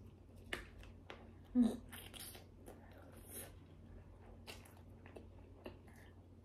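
Close-miked biting and chewing of a cheese-filled sausage: soft wet mouth sounds and scattered small clicks. One louder dull thump comes about one and a half seconds in.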